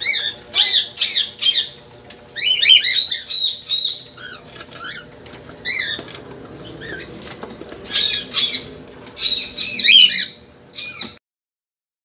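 A flock of cockatiels calling: clusters of short, arching chirps between brief pauses, with wings fluttering as a bird moves close by. The sound cuts off abruptly about a second before the end.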